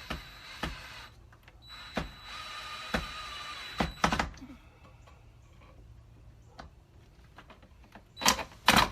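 Electric drill running in two steady stretches of a few seconds with a high whine, drilling mounting holes in the forged rebar hanger. A few sharp knocks follow, then two loud bursts of noise near the end.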